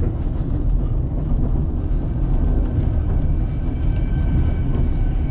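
White Pass & Yukon Route passenger train rolling along the track with a steady low rumble. A faint high whine joins about two seconds in.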